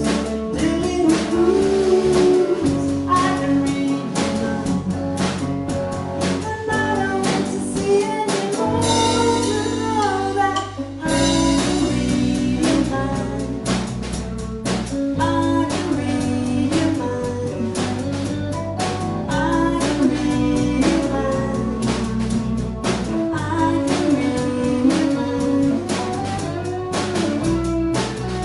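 Band music with a sung vocal over drum kit, bass and guitar, keeping a steady beat; the drums drop out briefly near the middle and come back in.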